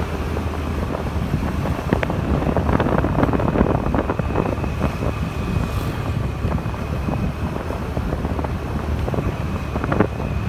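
Motorbike ride heard from the rider's seat: steady engine and road noise with wind buffeting the microphone, and scattered small knocks from the bumps. A thin, steady high whine comes in about halfway through.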